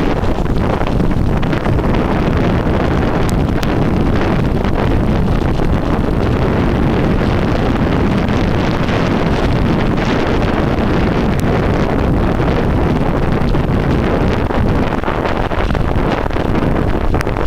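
Wind buffeting the microphone of a handlebar-mounted compact camera on a bicycle descending into a headwind: a loud, steady rushing roar.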